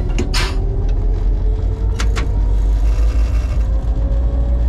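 EMD G16 diesel-electric locomotive's 16-cylinder two-stroke diesel running under power, heard inside the cab as a heavy, steady rumble, with a whine rising slowly in pitch as the locomotive moves off. A short hiss comes just after the start and two sharp clicks about two seconds in.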